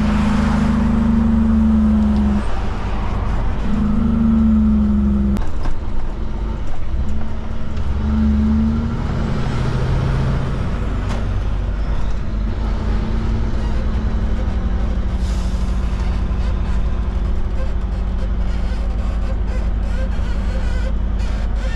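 Kenworth K200 cabover's Cummins diesel engine heard from inside the cab as the truck slows to low speed. Its note breaks off twice in the first five or so seconds, then runs low and steady.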